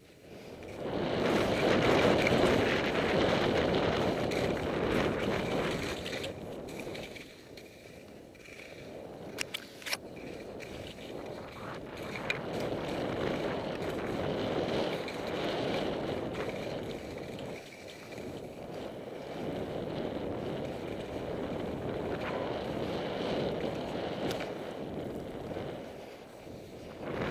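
Skis hissing and scraping through off-piste snow on a fast descent, the sound swelling and fading every few seconds with the turns, mixed with wind rushing over the microphone. A few sharp clicks about ten seconds in.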